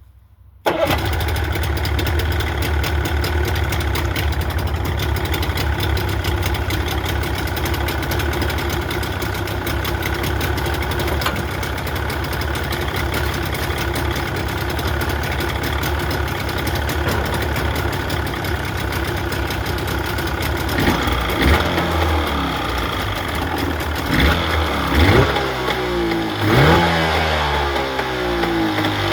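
1988 Mariner Magnum 30 hp two-stroke outboard motor. It comes in abruptly about a second in and runs steadily at idle, then is revved up and back down several times in the last few seconds.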